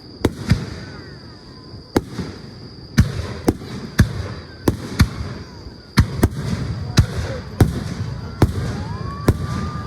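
Fireworks display: a rapid string of sharp aerial shell reports, about one or two a second, each trailed by a low rumbling echo.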